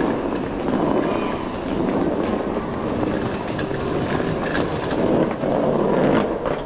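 Steady rolling rumble of suitcase wheels on a tiled station floor, with footsteps.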